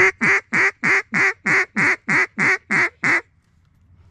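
Duck call blown in a steady string of about ten loud quacks, about three a second, each note dropping in pitch, then it stops. The call is being used to draw in ducks flying toward the decoys.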